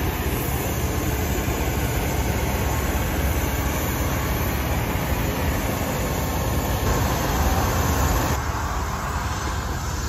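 Steady, loud engine noise on an airport apron beside a turboprop airliner during boarding: a continuous rush with a strong low rumble that shifts slightly in tone about seven and eight and a half seconds in.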